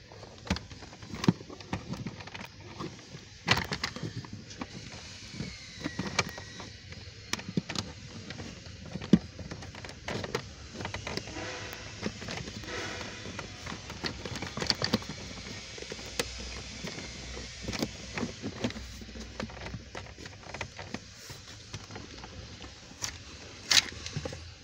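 Plastic lower dashboard trim panel of a Land Rover being pried and worked loose by hand: irregular sharp clicks, knocks and scrapes of trim clips and plastic, the loudest a few seconds apart.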